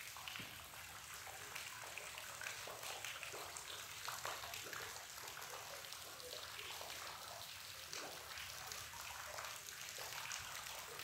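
Water dripping and trickling from a sandstone overhang onto rocks and a shallow pool: a faint, steady patter of many small drips and splashes.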